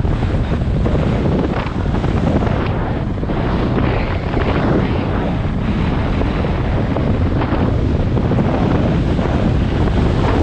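Heavy wind noise buffeting the microphone during a fast ski descent, with the recurring hiss of skis cutting through wind-packed snow on each turn.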